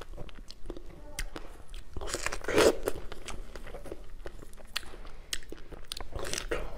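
Close-up biting and chewing of a large fresh strawberry: wet mouth clicks and smacks, with loud juicy bites about two and a half seconds in and again near the end.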